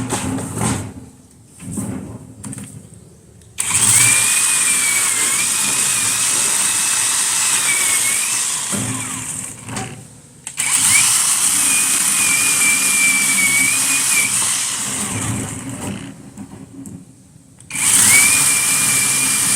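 Battery-powered chainsaw cutting wood in three runs of several seconds each, with short pauses between. A high electric-motor whine wavers slightly as the chain loads up in the cut.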